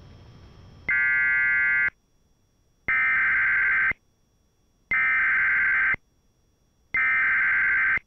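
Emergency Alert System SAME header: screeching digital data tones sent in four loud one-second bursts about a second apart, the coded header that opens an EAS alert.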